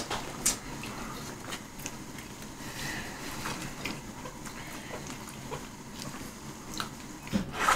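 Quiet eating at a table: faint, scattered clicks of cutlery against a dish while food is tasted.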